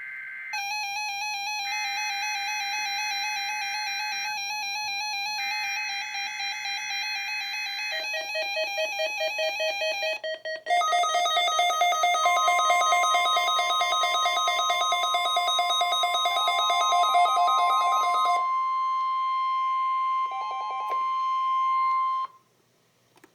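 NOAA Weather Radio weekly test signal: three bursts of SAME digital header data, then one steady high tone of about ten seconds, the 1050 Hz warning alarm tone, which cuts off suddenly near the end. Synthesized musical tones sound over the signal for most of its length.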